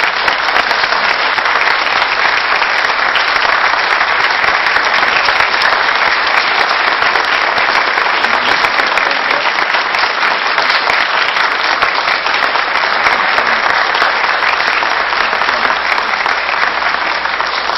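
Audience applauding: a long, steady round of clapping.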